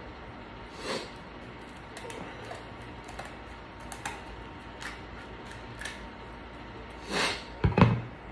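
Close-up eating sounds from a seafood boil: short wet clicks and smacks of chewing and handling food about once a second, then a louder clatter with a low thump near the end.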